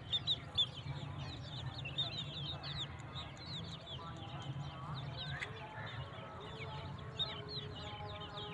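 A flock of chicks peeping constantly, many short high calls falling in pitch, overlapping. Hens cluck lower among them, more from about halfway through, over a steady low hum.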